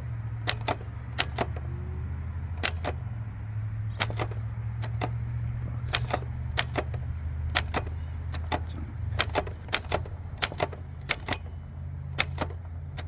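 A 1918 Erika 2 folding typewriter being typed on, its typebars striking in sharp, uneven clacks, often in quick pairs, about two a second. A steady low hum runs underneath.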